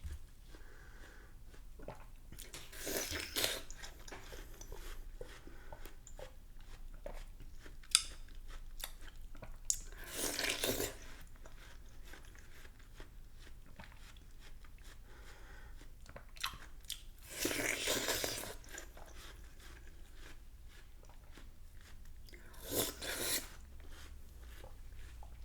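A person biting into and chewing watermelon: four loud, crunchy, juicy bites spaced several seconds apart, with quieter chewing and small wet clicks in between.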